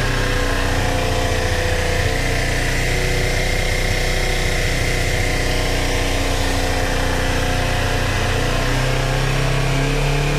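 Kawasaki Ninja 400's parallel-twin engine idling steadily.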